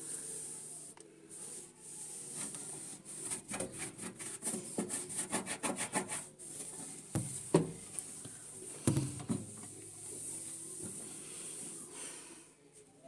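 Scrubbing the grimy inside of a microwave oven by hand: quick back-and-forth rubbing strokes, densest a few seconds in, with two louder knocks about seven and nine seconds in.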